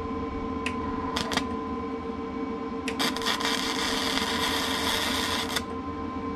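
MIG welder arc: three brief crackles in the first second and a half, then a steady crackling sizzle for about two and a half seconds as a weld bead is run, cutting off suddenly, over a steady hum.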